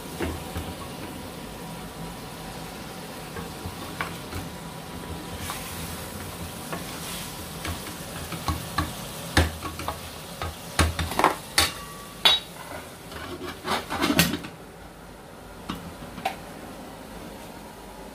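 Wooden spoon stirring and scraping potatoes in a sizzling curry in an aluminium pot, with short knocks against the pot. A run of loud metal clatters comes about two-thirds of the way through as the aluminium lid is handled and set on, after which the sizzle drops away.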